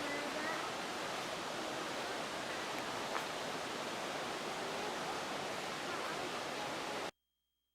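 Steady rushing of flowing water from a stream or waterfall, an even hiss with no rhythm, cutting off abruptly about seven seconds in.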